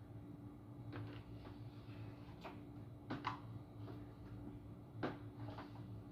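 Hair straightener being worked through hair: a few faint clicks and rustles, the loudest a little after three seconds in and about five seconds in, over a steady low hum.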